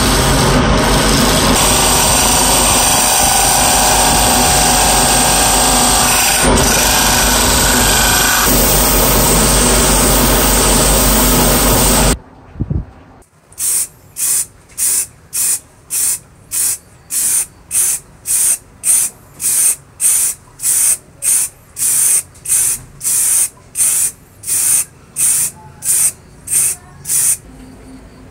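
Wood lathe running with a hand gouge cutting the spinning wood, a loud steady noise that stops abruptly about twelve seconds in. Then an aerosol spray can hisses in short, evenly spaced bursts, about two a second, as finish is sprayed onto the turned wood.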